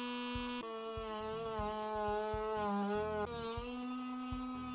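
Small handheld rotary tool (Drill Master) spinning a cut-off disc and cutting slits into the plastic bottom of a crate, with a steady buzzing whine. About half a second in the pitch sags and wavers for a couple of seconds as the disc bites into the plastic, then rises back near the end.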